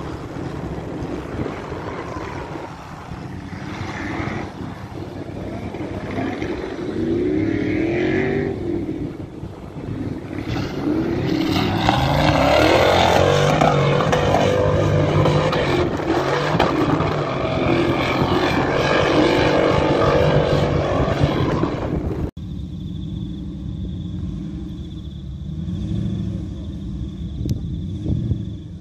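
Off-road 4x4 trials buggy engine revving hard under load on a hill climb, its pitch rising and falling, loudest in the middle stretch. About three-quarters of the way through the sound cuts off abruptly to a quieter engine running, with a thin steady high tone over it.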